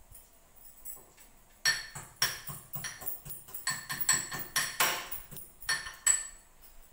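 Steel kitchen utensils and vessels clinking and knocking at the stove. The run of sharp, ringing clinks, a few a second, starts about a second and a half in and stops near the end.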